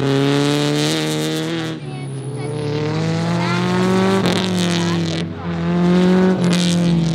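Rally car engine at high revs under hard throttle. The note rises and drops several times, with short breaks about two, four and five seconds in as the driver lifts or shifts.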